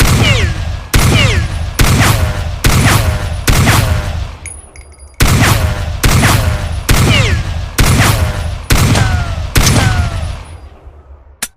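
.44 AutoMag pistol gunshot sound effect: single shots fired about a second apart, each with a long ringing tail. There are two runs of shots with a short pause between them, and a faint click near the end.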